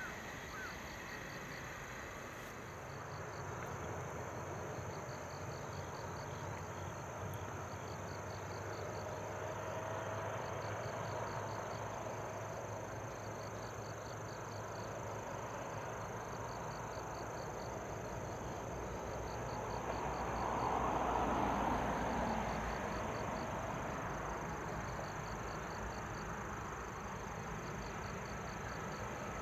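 Insects chirping outdoors in a steady, evenly repeating pulse, over a low steady rumble. A louder swell of noise comes and goes about two-thirds of the way through.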